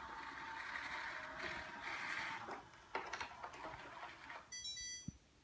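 Samsung Navibot SR8828 robot vacuum running with a steady whir, then a few clicks and a short electronic beep near the end, followed by a thump.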